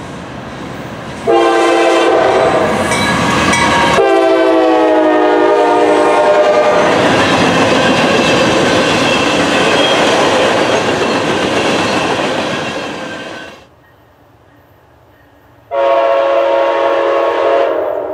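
Norfolk Southern freight locomotive's multi-note horn sounds two long blasts, the second sliding slightly lower in pitch as the locomotive passes, followed by the steady rumble and clatter of freight cars rolling by. After a sudden cut, an approaching Amtrak locomotive's horn sounds a long blast near the end.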